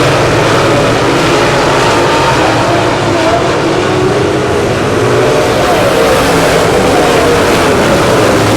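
Several dirt late model race car engines running hard together on a track, their pitches wavering as the cars go round. The sound is loud and steady with no pauses.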